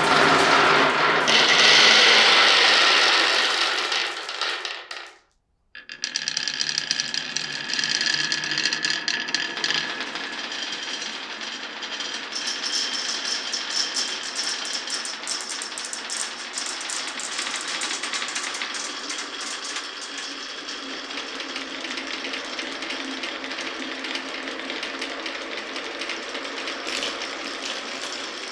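Marbles rolling and clattering along a wooden marble-run course: a dense, steady stream of small clicks and rattles. At the start a louder rushing sound fades out and breaks off for a moment about five seconds in.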